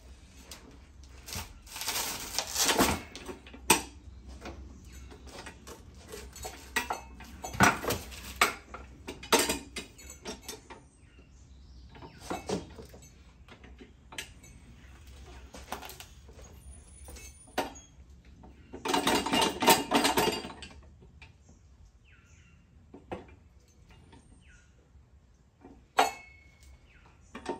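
Manual tire changer's steel bead-breaker arm being levered down against a tire sidewall to break the bead off an 18-inch rim: metal clanks and rattles in several separate bursts, with a longer burst about two-thirds of the way through and a sharp click near the end.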